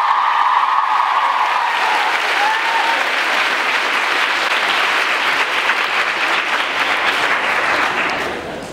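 A large audience of school students applauding, with shouted cheering over the clapping for the first couple of seconds. The clapping carries on alone and starts to die away near the end.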